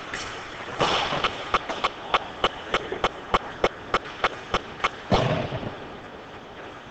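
Ice hockey rink sounds: about four seconds of sharp, evenly spaced claps, roughly three a second, then one heavy bang, like a puck or player hitting the boards, about five seconds in.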